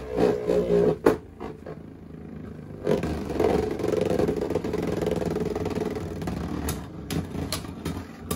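Two Beyblade Burst spinning tops whirring against each other in a clear plastic stadium. There is a sharp clack about a second in, a louder steady grinding whir from about three seconds in as they spin together, and a few quick clacks near the end.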